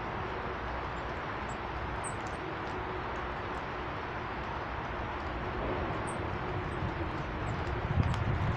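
A few faint high bird chirps over a steady hiss of outdoor background noise. Wind buffets the microphone near the end.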